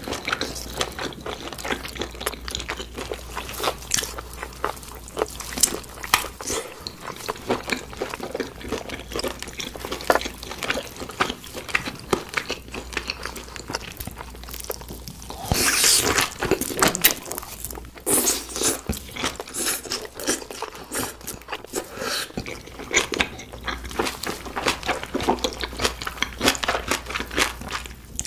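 Close-miked eating sounds: steady chewing with wet mouth clicks and crunchy bites of meat. There is a louder stretch of crunching about halfway through.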